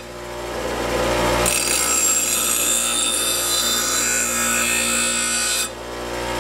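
Delta bench grinder motor running with a steady hum, and a steel lawnmower blade's edge ground against the spinning wheel. The grinding starts about a second and a half in, runs steadily, and cuts off shortly before the end as the blade is lifted off the wheel.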